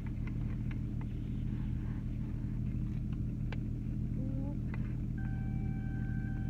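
Car engine idling, a steady low hum heard from inside the cabin, with a few light clicks. About five seconds in, a steady high electronic tone starts and holds.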